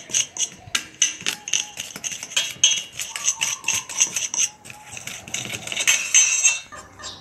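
Metal spoon clinking and scraping rapidly against a metal bowl while stirring a dry chemical powder mixture, about four or five strikes a second, stopping near the end.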